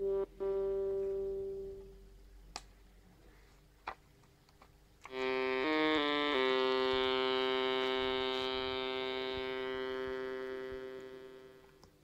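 Homemade Arduino Uno digital synthesizer running the Mozzi synthesis library: a buzzy held note fades away over a couple of seconds, with two faint clicks after it. About five seconds in a few quick notes lead into a held two-pitch note that slowly fades out near the end.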